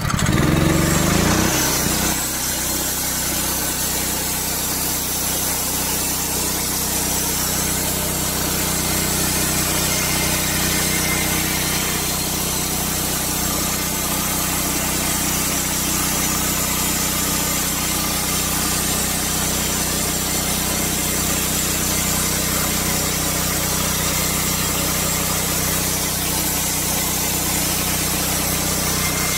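Honda gasoline engine on an SMG bandsaw mill revving up, then running steadily under load as the band blade cuts a board of lap siding from a cant.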